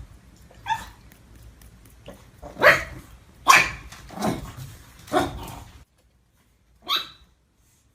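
A dog barking: a series of single barks about a second apart, then a short gap and one more bark.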